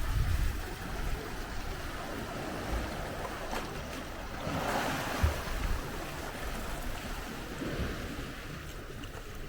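Sea washing against rocks, a steady surge of surf with a louder swell about halfway through, with wind rumbling on the microphone.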